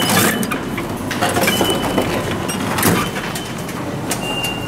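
Hinged plastic flap of a vending machine's pick-up bin pushed open and a cardboard snack box taken out, giving a few sharp knocks and clatter over steady loud background noise.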